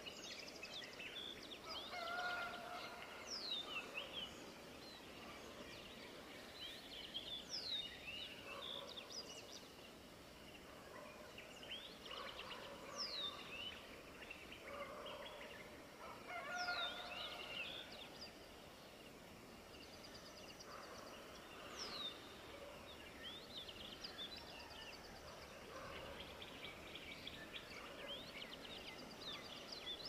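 A chorus of several birds. One sharp call sweeps down in pitch and comes back about every four to five seconds, among many quicker chirps and twitters and a few short, lower calls, over a steady outdoor hiss.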